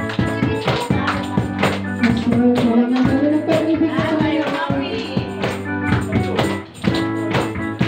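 Live worship music: a voice singing a melody over sustained keyboard and bass chords, with a steady tambourine and drum beat.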